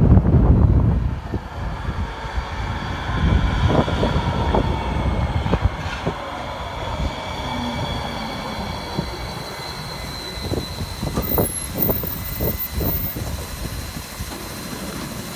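Hudson-Bergen Light Rail Kinki Sharyo light-rail car pulling into the platform and slowing to a stop: a low rumble as it arrives, then a steady motor and brake whine over the wheels on the rails, with a few sharp knocks as it comes to rest.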